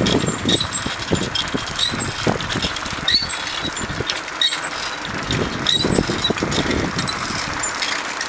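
A bicycle rolling along a paved lane, its frame and fittings rattling with irregular knocks over a steady rush of tyre and road noise. A few brief high squeaks come through now and then.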